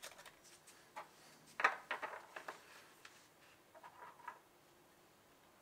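Small clicks, taps and rustles of a new glow plug, its cardboard box and a multimeter probe being handled on a workbench. The loudest cluster comes about one and a half to two and a half seconds in, with a short scratchy patch around four seconds.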